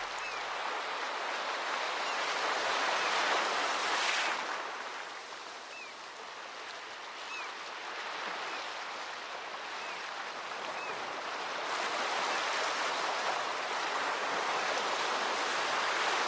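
Ocean surf: a hiss of waves that swells and ebbs over several seconds, with a few faint short chirps above it.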